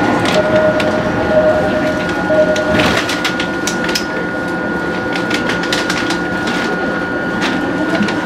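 Cabin of a JR E217-series electric commuter train's motor car standing before departure: a steady electrical hum with a constant high tone. A mid-pitched tone sounds three times in the first three seconds, and clicks and knocks are scattered throughout.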